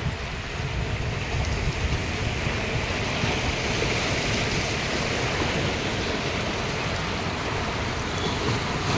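Sea waves washing onto the shore: a steady rush of surf.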